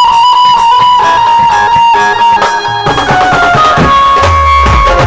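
Loud DJ music played over a sound system: a plucked-string melody over a beat, with heavy bass coming in about three seconds in.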